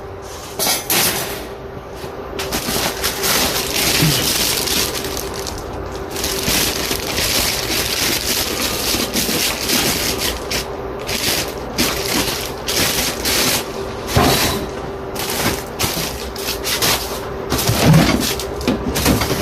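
Packing materials being handled and pulled out of a cardboard box: continuous irregular crinkling, rustling and cracking.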